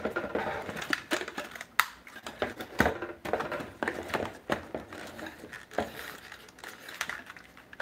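Irregular hard-plastic clicks and knocks as a folding quadcopter is handled, its arms and legs being swung out and clipped into place; the sharpest clicks come about two and three seconds in.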